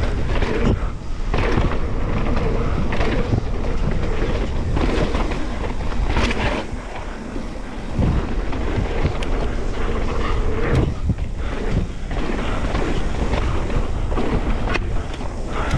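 Mountain bike descending a dirt singletrack: tyres rumbling over the dirt, the bike rattling and knocking over bumps, with wind buffeting the action camera's microphone.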